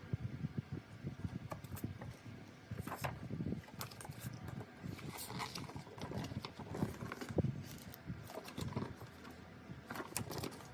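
Irregular handling noises of a parcel being unpacked: crinkling rustles, light taps and soft knocks.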